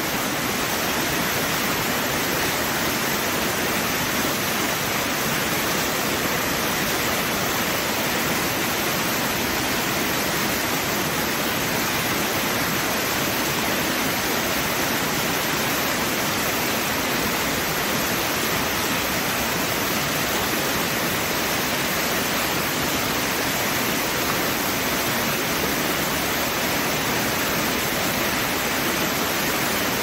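River water flowing, a steady, even rush with no breaks or changes.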